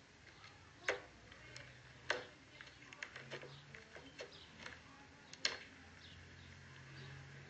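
Mochi slime with little pom-poms mixed in being poked and squeezed, giving faint, irregular sticky clicks and pops, a few of them sharper than the rest.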